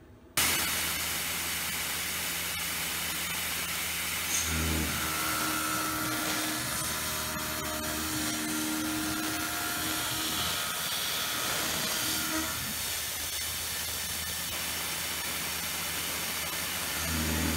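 Tormach PCNC 770 CNC mill cutting steel with a 5/16 in end mill at 4500 RPM and 120 inches a minute, with an air blast hissing onto the cutter. It starts abruptly, then runs as a steady hiss over a hum from the machine, whose tones shift a few times as the tool goes around the contour.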